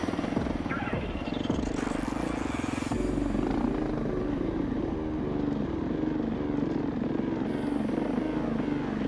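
KTM 690 Enduro R's single-cylinder engine running under way, its note shifting a few times with the throttle.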